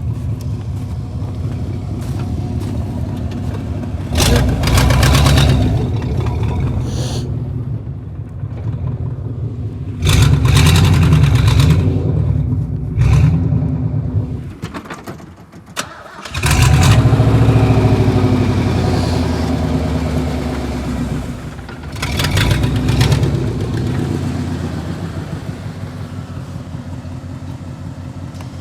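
A car engine running and being revved in several surges, settling back toward idle between them. Near the middle it drops away briefly, then comes back strongly.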